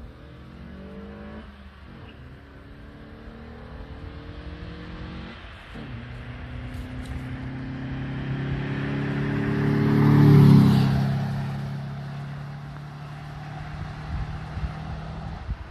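Opel Tigra 1.4 16V's naturally aspirated four-cylinder engine accelerating hard toward the listener, climbing in pitch through two gear changes. It passes about ten seconds in, at its loudest, then drops in pitch and fades as it drives away.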